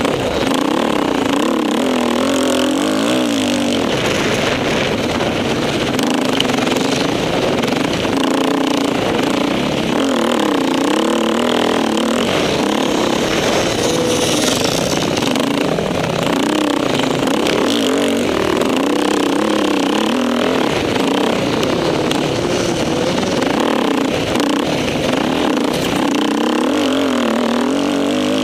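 Off-road motorcycle engine heard from on the bike, revving up and falling back over and over as it is ridden hard over dirt and sand.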